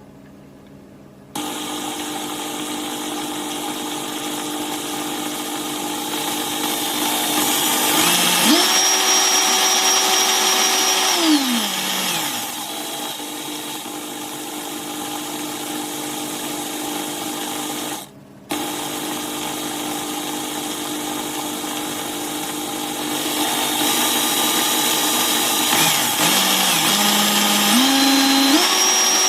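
BLACK+DECKER KR112 drill driver's electric motor running with no load, a steady whine that speeds up about a third of the way in and slows back down a few seconds later. It stops briefly about two thirds in, restarts, and speeds up again near the end.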